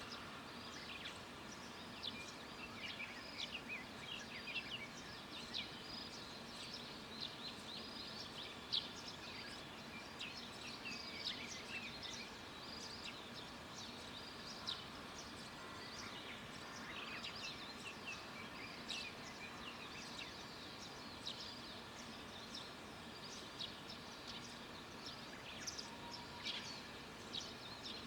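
Several wild birds chirping and calling in the countryside, many short quick chirps from different birds one after another, over a steady faint outdoor background.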